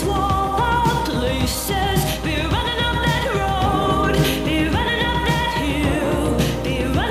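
Background music: a pop song with a sung melody over a steady beat.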